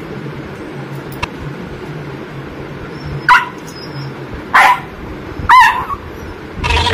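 Jack Russell terrier puppy giving three short, high-pitched barks a little over a second apart, starting about three seconds in, barking for the food on the plate in front of it.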